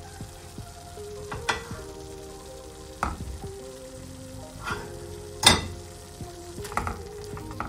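Flour-thickened broth with rice and garlic cloves bubbling and sizzling at the boil in a nonstick frying pan, while a browned chicken drumstick is laid in. A few sharp knocks, the loudest just past halfway. Soft background music plays underneath.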